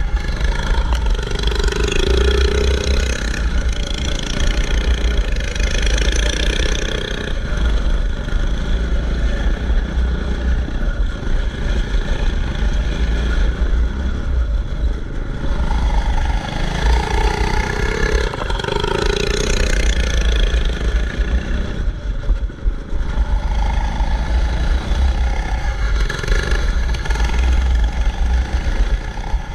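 Yard go-kart engine running hard under the rider, its note rising and falling with the throttle through the corners of a dirt track, over a heavy steady rumble.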